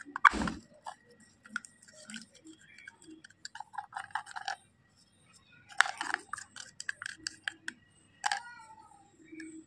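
A white plastic spatula scrapes and stirs wet slate-pencil powder paste around a small plastic toy pot, a run of short gritty scrapes and clicks, as the pot is scraped nearly empty. A louder knock from handling the pot comes right at the start.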